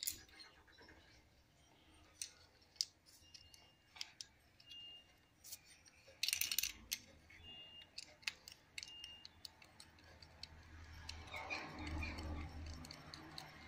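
Faint scattered clicks and light metallic taps of small bolts and washers being handled and fitted through a belt-tensioner pulley, with a brief louder rattle about six seconds in and a low rumble near the end.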